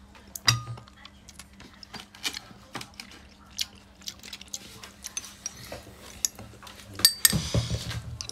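Cooked clam shells clicking and clinking against each other and the stainless steel bowl as a hand picks through them, with scattered sharp clicks and a louder, denser clatter about seven seconds in.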